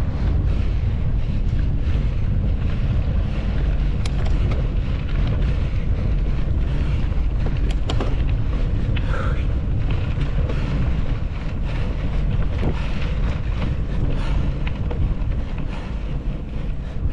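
Wind buffeting the microphone of a GoPro on a mountain bike riding at speed: a steady low rumble with a few sharp clicks now and then.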